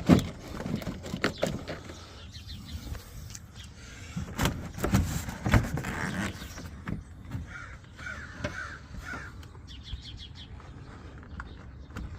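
Irregular knocks and plastic clicks as a pickup truck's plastic door panel is handled and fitted onto its slide-in clips. A crow caws several times partway through.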